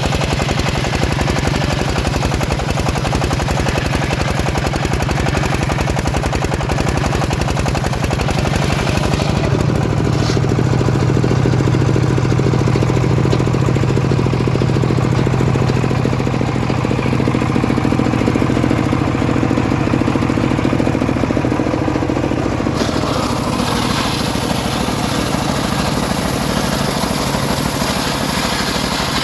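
Engine-driven homemade sawmill running steadily while milling teak. From about ten seconds in to about 23 seconds the high hiss drops away and a deep steady hum comes to the fore, then the hiss returns.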